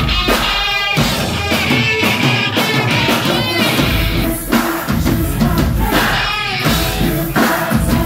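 Live rock band playing loud: pounding drum kit, heavy electric guitar and a woman singing into a microphone. The deep bass drops out for a couple of seconds about a second in and comes back in with full force.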